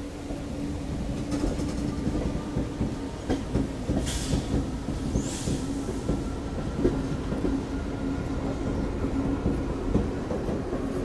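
Passenger train running on the rails, its wheels clicking over rail joints above a steady low rumble from its diesel locomotives. Two brief high-pitched bursts come about four and five seconds in.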